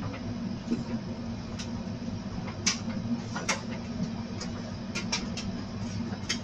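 Light, irregular clicks and taps of fingers handling a phone, over a steady low hum.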